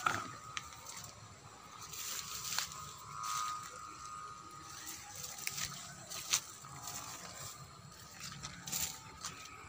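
Footsteps crunching through dry leaves and undergrowth, with irregular crackles and a few sharper snaps.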